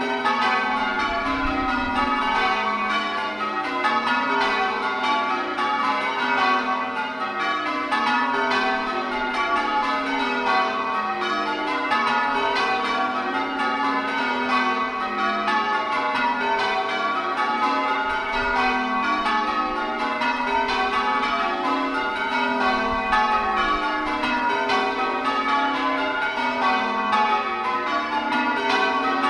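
Ring of eight church bells, tenor 626 kg in F♯, rung full-circle, one bell after another in a continuous, even succession of strikes with their tones ringing on and overlapping.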